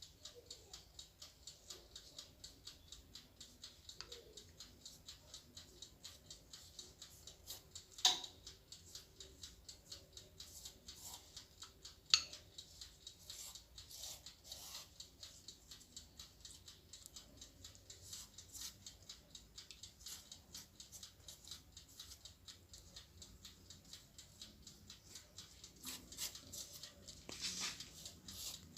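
Faint, regular ticking, about three ticks a second, with two sharper clicks about eight and twelve seconds in and a few small handling sounds near the end.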